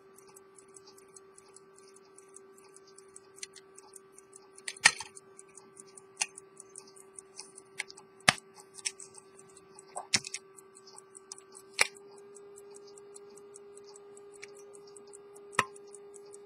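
Quick, even ticking of a serviced 1840–1865 Swiss ultra-thin pocket watch movement, running strongly. Several louder sharp clicks, the loudest about five seconds in, come from the engraved silver case being handled and pressed shut.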